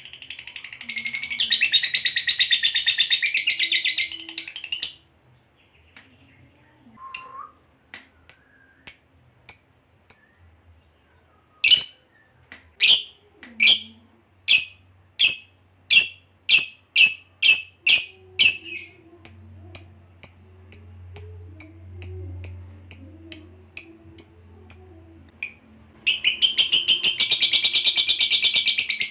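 Fischer's lovebird chattering in a long, rapid, high trill, the 'ngekek panjang' that lovebird keepers prize. It then breaks off into sharp single chirps, a couple a second, which quicken before the long trill starts again near the end.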